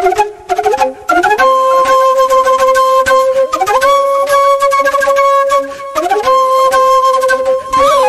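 Background music of a solo flute playing a slow melody: a few quick notes, then long held notes joined by slides up and down in pitch.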